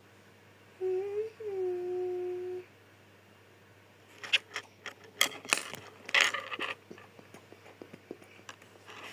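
A child humming a short tune of two held notes, then a few seconds of small hard objects clicking and clattering.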